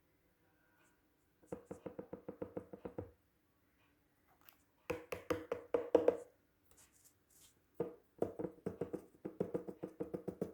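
Rapid tapping, about eight or nine taps a second, in three runs of one to three seconds each, every tap with a short ringing tone like a knock on a small hollow object.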